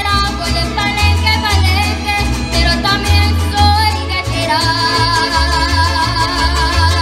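Mariachi ensemble playing live: violins, trumpets, guitars and harp with a singer, over a deep bass line in a steady rhythm. About four and a half seconds in, long held notes with vibrato come in.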